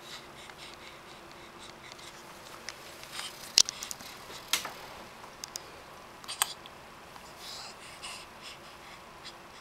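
A baby's small noises in a quiet room: a few soft snuffly breaths and several short, sharp clicks. The loudest click comes a little over three and a half seconds in.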